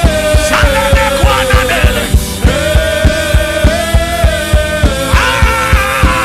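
Gospel worship music with no words: a steady, pulsing beat at about three to four per second under a long held keyboard note, with a melodic line that slides and bends above it about a second in and again near the end.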